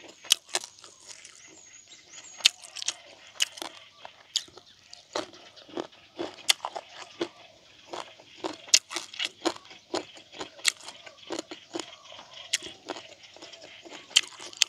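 Close-miked chewing of grilled frog: irregular sharp crunches and wet mouth clicks as the bones and meat are bitten and chewed, several a second at busy moments.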